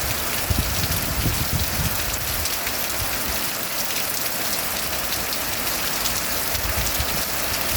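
Heavy rain falling steadily, a dense hiss of drops striking surfaces, with bursts of low rumble about half a second in, around one to two seconds in, and again near the end.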